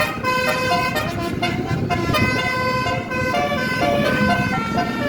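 Basuri telolet multi-tone bus horn playing a tune, its notes stepping from pitch to pitch every fraction of a second, over the bus's engine and road rumble.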